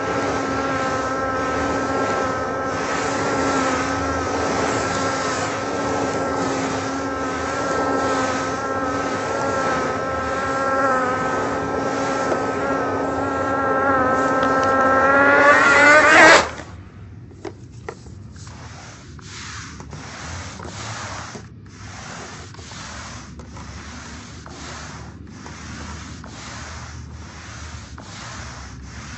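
A loud vacuum cleaner motor drones at a steady pitch, rises in pitch and then cuts off suddenly about sixteen seconds in. It is followed by a much quieter airy hiss that swells and dips about once a second.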